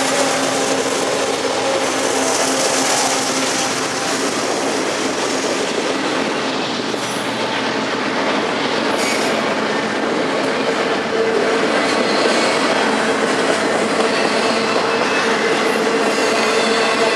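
Double-stack intermodal freight train passing close by at speed: the steady rush and rattle of well cars and their wheels on the rail. The mid-train diesel locomotive's engine hum fades out in the first second, and a steady wheel whine comes in about eleven seconds in.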